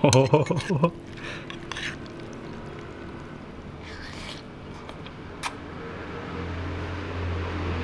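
A man eating noodles with chopsticks. A short murmur of enjoyment and a few clicks of chopsticks against the bowl come in the first second, a slurp follows about four seconds in, and another click comes later. A low steady hum comes up near the end.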